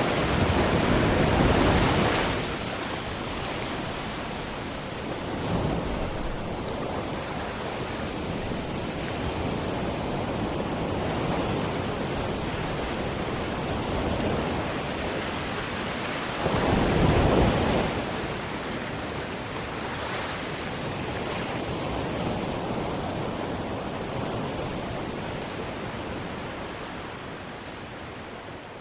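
Sea waves washing with wind buffeting the microphone, a steady rush that swells louder twice, at the start and a little past halfway, and eases off near the end.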